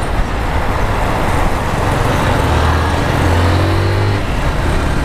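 Honda CG 150 Fan motorcycle's single-cylinder engine running at cruising speed under a steady rush of wind and road noise. The engine note grows louder and climbs a little around the middle as it picks up speed.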